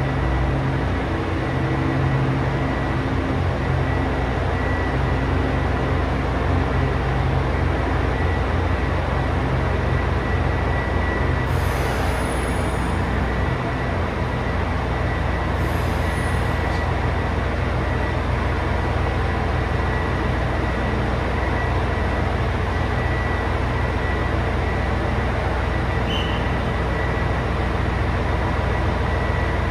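JR Hokkaido H100 'DECMO' diesel-electric railcar idling at the platform: its diesel generator engine runs with a steady low hum under a thin, constant high-pitched whine. Two brief faint hisses come about twelve and sixteen seconds in.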